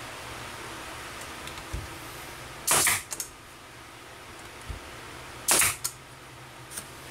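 Brad nailer firing twice, about three seconds apart, driving nails through a pine strip into a board: each shot a short sharp bang followed by a small click.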